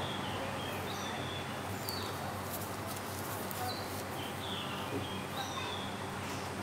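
Short high chirps of small birds every second or so, over a steady background hiss and low hum.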